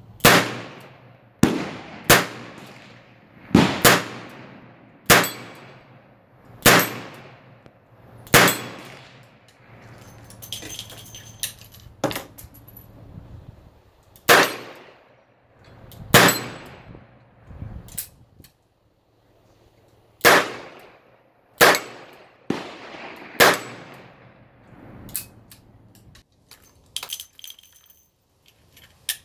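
Smith & Wesson Model 19 .357 Magnum revolver fired shot after shot, each shot sharp with a brief ringing echo: one string of shots, a pause, then a second string of about six. Lighter metallic clicks and clinks come between the strings and near the end.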